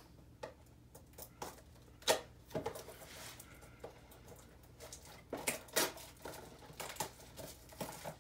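Cardboard and plastic packaging of a trading-card blaster box being handled and opened: scattered light taps, scratches and rustles. There is a sharper tap about two seconds in and a bunch of them around five to six seconds in.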